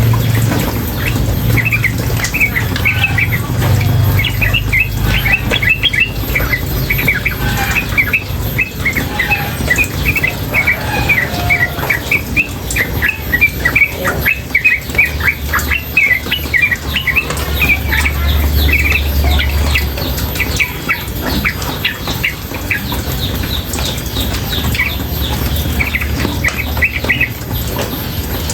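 Female yellow-vented bulbul calling in long, rapid runs of short chirps without pause, over a steady low rush of running water; the chirping thins out a little near the end.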